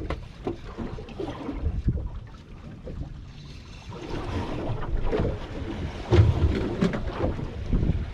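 Wind buffeting the microphone and water sloshing around a small boat, with irregular knocks and clatter on the boat, loudest about six seconds in.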